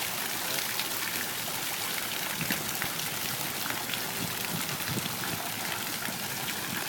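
Fountain water falling and splashing steadily into a stone basin, with scattered sharper small splashes.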